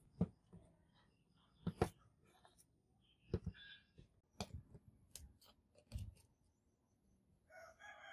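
Rusty model car parts clicking and knocking as they are handled and set down on a work table, about seven sharp knocks spread through it. Near the end a rooster starts crowing.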